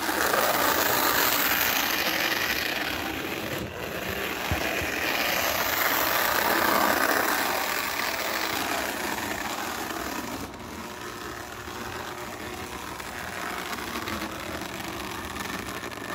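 Lionel 60 trolley car's small electric motor whirring and its wheels rattling along O-gauge three-rail track as it runs, swelling as it passes close and easing off toward the end.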